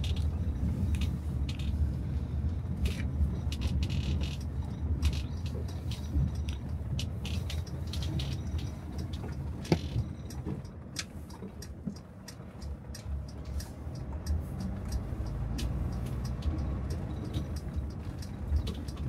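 Car driving, a steady low engine and road rumble with many small ticks and rattles over it; the rumble eases briefly about twelve seconds in.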